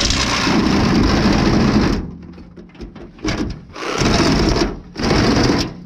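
Cordless power saw cutting in bursts: a long run, then three shorter ones. It falls silent shortly before the end, its battery gone flat.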